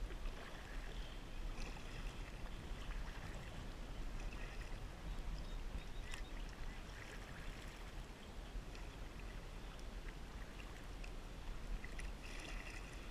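Kayak paddle strokes in calm water: the blade dipping, splashing and dripping, with a brighter splash near the end, over a steady low rumble.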